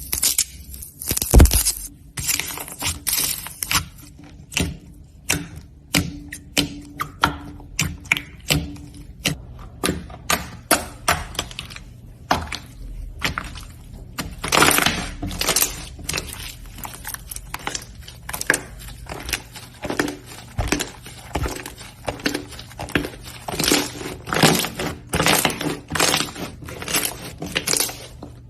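Slime being squeezed and pressed by hand, giving a dense string of irregular crackles and pops.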